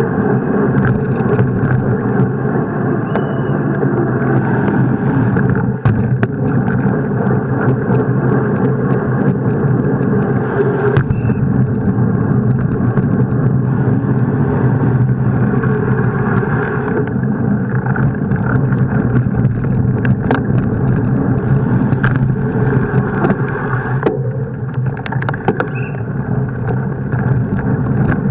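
Wind rush and tyre rolling noise on a camera riding along with a bicycle at about 20 km/h, a steady muffled rumble, with occasional short knocks and rattles from bumps in the road surface.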